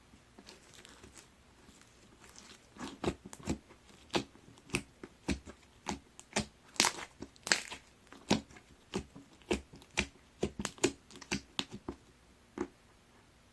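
Jiggly watery slime being squished and poked by hand, giving an irregular run of sharp wet clicks and pops, about two or three a second, that stop about a second before the end.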